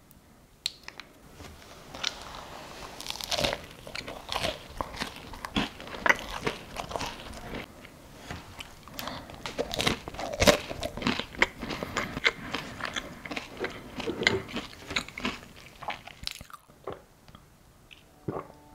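Close-miked biting and chewing of a crisp-crusted American-style scone (biscuit), with dense, irregular crunches that carry on for about fifteen seconds, then thin out to a few light clicks near the end.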